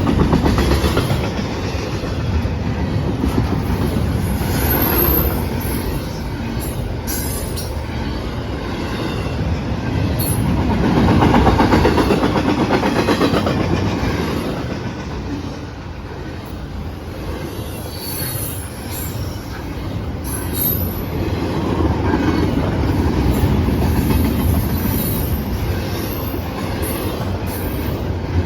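CSX intermodal freight train passing fast: a steady rumble of wheels on rail that swells about eleven seconds in, with a few brief high-pitched wheel squeals.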